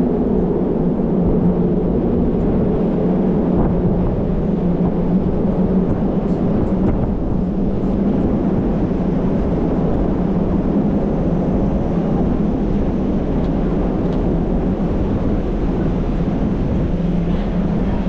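Wind rumbling steadily on the microphone over a constant low hum.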